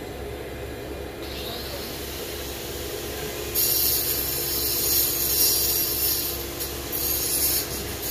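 Steady low drone of a crane's engine running as it hoists the hook. About halfway through, a loud scratchy rubbing hiss comes in and goes on in uneven bursts.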